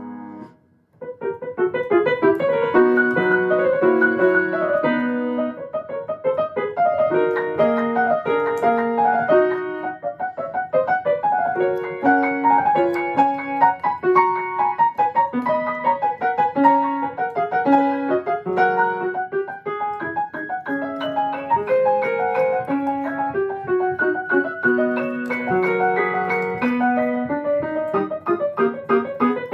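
Grand piano played fast with both hands: after a brief break about a second in, rapid runs of notes in the middle and upper register.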